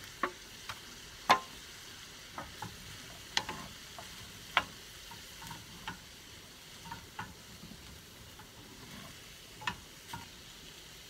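A wooden spatula stirs and scrapes baby potatoes, onion and red pepper in a stainless steel frying pan, making irregular clicks and knocks against the pan over a low, steady sizzle.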